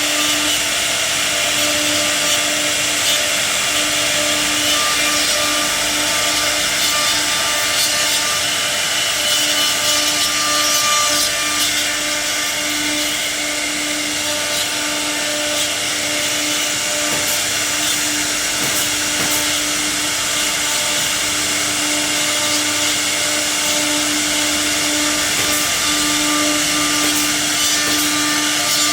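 CNC router cutting wood: a steady, unbroken machining hiss with a constant spindle tone running under it.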